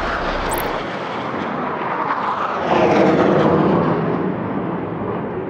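A loud, dense roar from a large field of endurance-racing superbikes being fired up and revved together at a running start, swelling about three seconds in.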